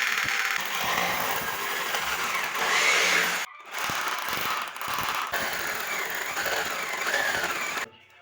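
Power tool running under load, a noisy grinding whine whose pitch wavers; it breaks off abruptly about three and a half seconds in, starts again, and stops sharply near the end.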